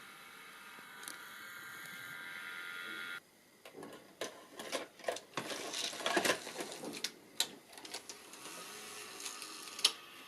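A small motor whines steadily for about three seconds and cuts off suddenly. Irregular mechanical clicks and clatter follow.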